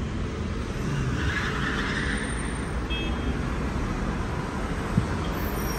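Road traffic: a steady hum of passing cars, one louder rush of tyre noise between about one and three seconds in, and a single short knock near the end.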